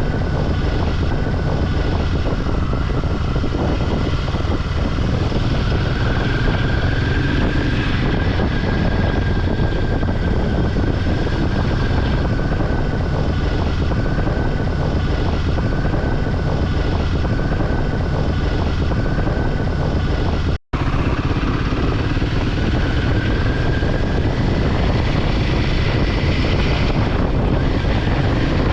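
Motorcycle riding along a road: a steady rush of engine and road noise with a faint whine that drifts slightly up and down in pitch. The sound cuts out for an instant about two-thirds of the way through.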